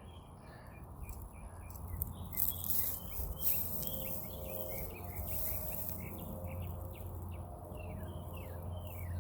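Birds chirping, many short downward-sweeping chirps repeating quickly, over a steady low background hum.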